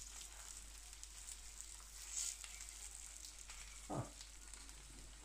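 Eggs frying on a carbon steel griddle over a stovetop burner: a faint, steady sizzle with small scattered crackles. A brief low sound comes about four seconds in.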